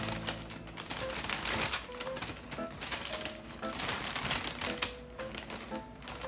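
Thin plastic bag crinkling and crackling as it is pulled open and handled quickly by hand, a dense irregular run of small crackles, with light background music underneath.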